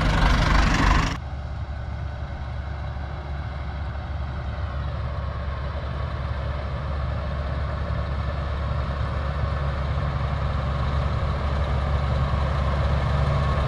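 A large tractor's engine runs steadily as it pulls a cultivating-and-seeding implement across the field, slowly growing louder as it comes closer. For about the first second, a loud rush of noise is heard before it cuts off abruptly.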